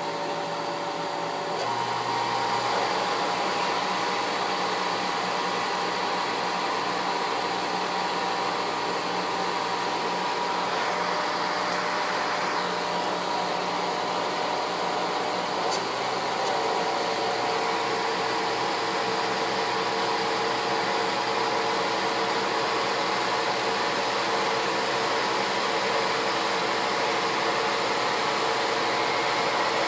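DC motor with a heavy flywheel running under PWM MOSFET speed control: a steady whirring with whining tones. It gets louder and the whine changes pitch about two seconds in, and the whine shifts again around halfway, as the duty cycle is raised during a run-up.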